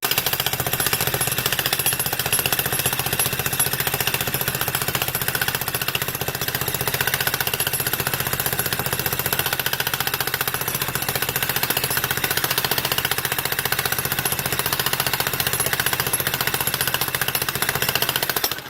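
Jackhammer running without a break, hammering rapidly into concrete, starting and stopping abruptly.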